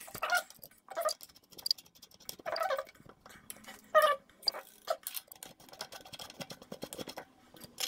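Open-end wrench turning and tightening a new Epic bearing pedal's steel spindle into a bicycle crank arm: a run of irregular metallic clicks and clinks, denser in the second half.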